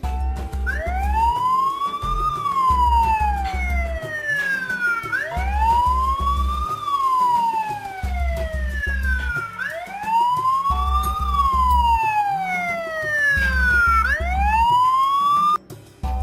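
Sarotech ST C100F home security camera's alarm siren wailing, sliding up and then slowly down in pitch in cycles of about four and a half seconds, then cutting off near the end. A pulsing low beat of background music runs underneath.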